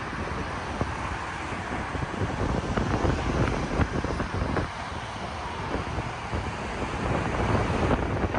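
Wind buffeting the microphone in uneven gusts over the steady noise of road traffic.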